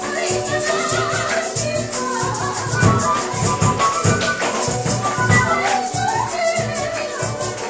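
Andean-style traditional music: rattles or shakers keep a steady, even beat under a wavering melody, with low drum beats coming in near the middle.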